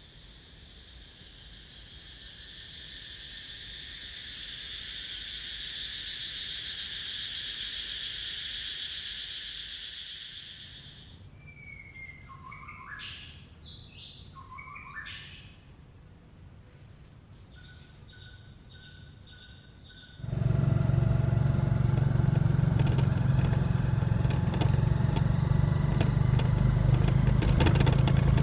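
Cicadas chattering in a dense, high hiss that swells and then fades, cutting off about 11 seconds in. Forest birds then give short whistled calls and chirps over faint insects. About 20 seconds in, this gives way to the much louder, steady run of a tuk tuk's engine, heard from onboard.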